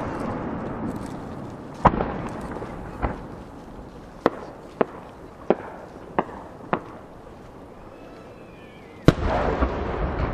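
A 10-inch Japanese fireworks shell (shakudama): a sharp bang about two seconds in, a smaller one a second later, and five sharp cracks from its rising effects. Near the end comes the loud boom of the main burst, followed by a long rolling rumble.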